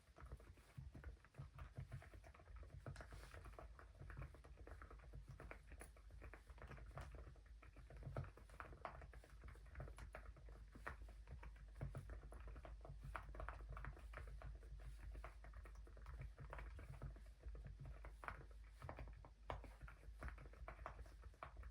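Continuous typing on an Epomaker Galaxy80 mechanical keyboard with Epomaker Nude Rosa silent (low-noise) switches and MOA-profile keycaps. It is a soft, muted stream of keystrokes, several a second, with no sharp clacks.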